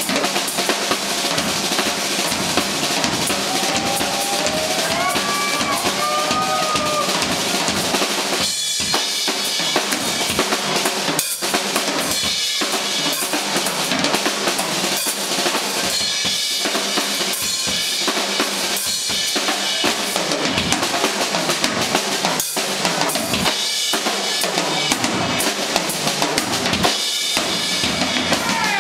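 Drum solo on a Yamaha drum kit: continuous, busy playing of bass drum, snare, toms and cymbals.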